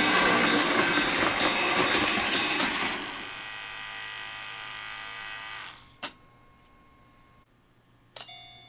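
An O-gauge model train's small electric motor whirs and its wheels clatter loudly over the track, then fade away, dying out about six seconds in. Near the end a sharp click is followed by the crossing signal starting to ring, steady tones with regular strikes.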